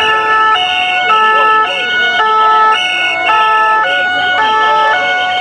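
French two-tone emergency siren (the fire service 'pin-pon'), close and loud, switching between its two notes about every half second.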